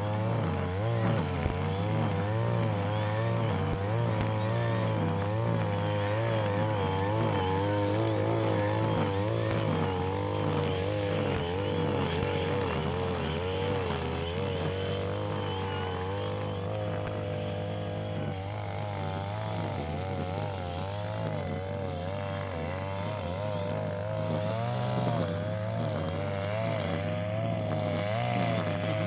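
Petrol brush cutter (grass-cutting machine) engine running steadily, its speed wavering up and down as it cuts.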